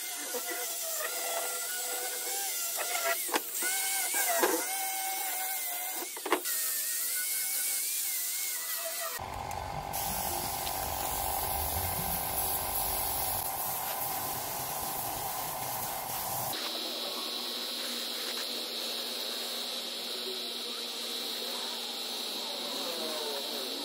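Angle grinder with a sanding disc running against steel box-section tubing, its whine wavering as it is pressed on, with a few sharp knocks. After a cut there is a low rumble with a steady hum, then a steady high drone of insects.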